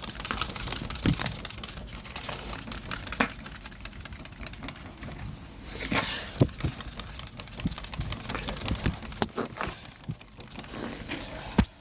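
Crinkling and rustling of dry material being handled, with scattered sharp clicks and knocks, the loudest knock near the end.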